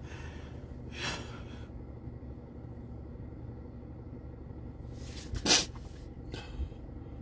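A man sniffling while crying: a short sniff about a second in, then a loud sharp sniff about five and a half seconds in and a smaller one just after, over a steady low hum.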